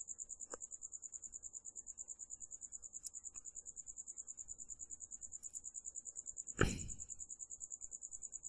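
A faint, steady high-pitched trill pulsing about nine times a second, with one short knock about two-thirds of the way through.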